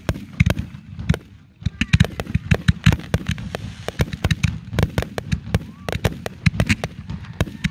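Aerial fireworks shells bursting in a rapid volley of sharp reports. A few bangs come first, then from about two seconds in they come several a second.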